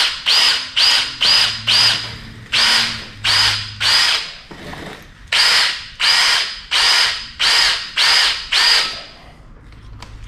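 Electric drill with a 5/16-inch bit run in short trigger pulses, about two a second, each spinning up with a high whine as it cuts into the crankshaft through the flywheel's hole, spotting the centre for a dowel hole. The pulses pause briefly twice and stop about nine seconds in.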